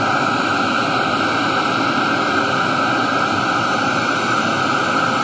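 Steady hiss of a noise test signal played through a large PA sound system, even in level and strongest in the upper mids. It cuts off abruptly just after the end.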